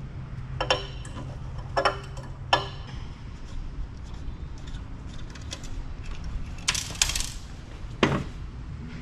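Hand tools working on copper bus bars in a telecom power assembly: sharp metal clinks and taps as a screwdriver works loose a ferrous screw plug. Three separate clinks in the first few seconds, a quick cluster of clinks about seven seconds in, then a duller knock.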